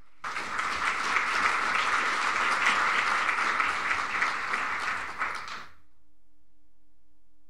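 Audience applauding for about five seconds, then dying away.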